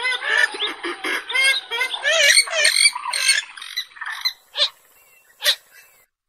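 Purple gallinule (Porphyrio martinicus) calling. A fast run of repeated cackling notes, about three a second, breaks into looser, more varied calls. Two short sharp notes follow before it stops.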